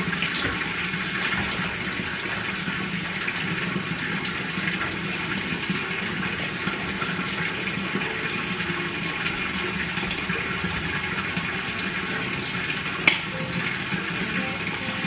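Water from a wall fountain's spout splashing steadily into its concrete basin, with one sharp click near the end.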